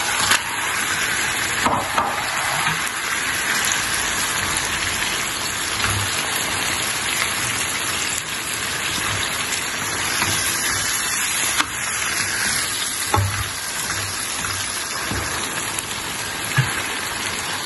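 Raw chicken pieces sizzling and frying in a pan of hot masala whose oil has just separated, a steady hiss with a few soft knocks.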